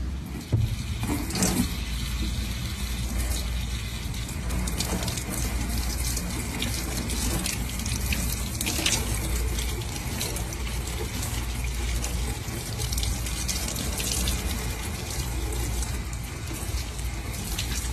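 Water running steadily from a kitchen tap and splashing into a stainless steel sink as a cucumber is rubbed clean under the stream by hand.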